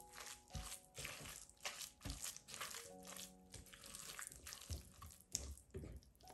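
Silicone spatula stirring and scraping a thick, wet oat-and-mushroom mixture in a glass bowl, in repeated short wet strokes, over soft background music.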